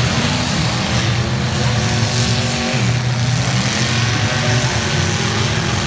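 Demolition derby cars' engines revving up and down, over a continuous din of several engines at once.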